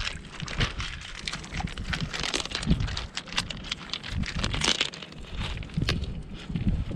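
Small river pebbles crunching and clicking under footsteps in sandals, with a cast net scraping over the stones: an irregular run of small clicks and scrapes.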